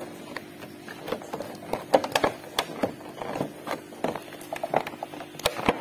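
Clear plastic blister packaging crackling and clicking irregularly as a plastic toy robot is pulled and worked loose from its tray by hand.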